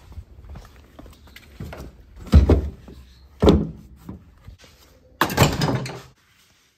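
A padded gear bag handled and dropped into a pickup truck bed: two dull thumps, then a longer scuffing as it slides over the bed liner, cut off abruptly near the end.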